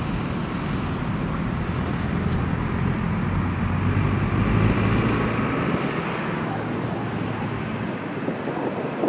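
HŽ Cargo class 1141 electric locomotive hauling a long train of loaded open freight wagons slowly past: a steady rumble with a low hum that swells around the middle and eases near the end.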